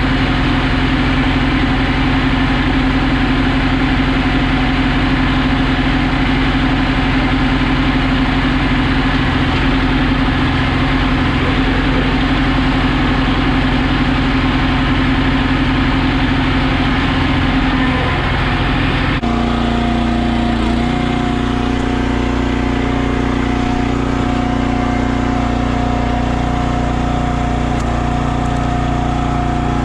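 Gas engine of a log splitter running steadily at a constant speed; its pitch shifts abruptly about two-thirds of the way through.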